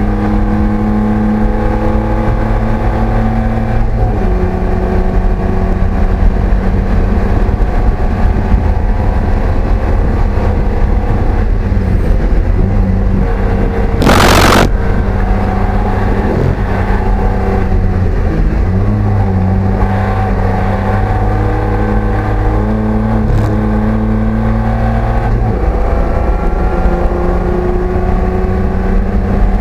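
Race car engine heard from inside the cockpit, pulling hard with its pitch climbing and dropping back at shifts and braking. A loud rush of noise lasts about a second midway through.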